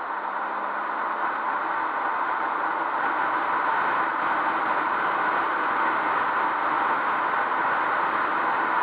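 Wind rushing over the microphone of a camera on a moving motorcycle, a steady hiss that grows a little louder over the first couple of seconds and then holds.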